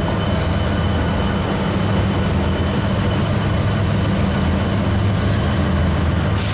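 Diesel locomotives idling with a steady low, throbbing hum, with a short burst of hiss near the end.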